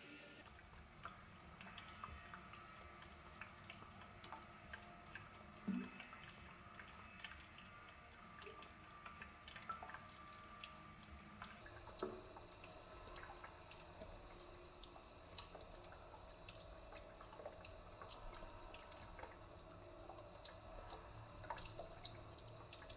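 Faint thin stream of water trickling from a bathroom tap into a ceramic washbasin, with small irregular ticks and drips as a Scottish Fold cat laps from the stream. One louder knock about six seconds in.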